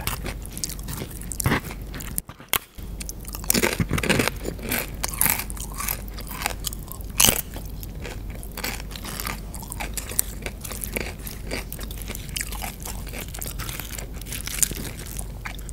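Close-miked chewing and crunching of tortilla chips scooped through a burrito bowl, a string of sharp crunches with wet chewing between them. The loudest crunch comes about seven seconds in.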